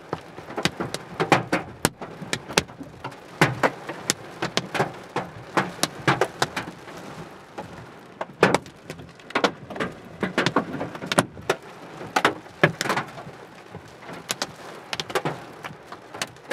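Hailstones striking a car's body and windshield, an irregular run of sharp knocks several times a second over a steady hiss of rain.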